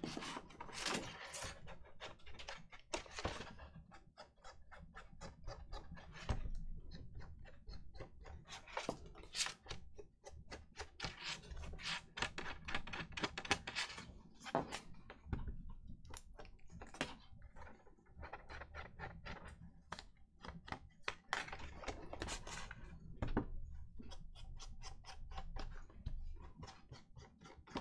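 Edges of a paper card being inked: a run of quick, irregular dabbing and scuffing strokes of an ink applicator against the paper, several a second, with short pauses.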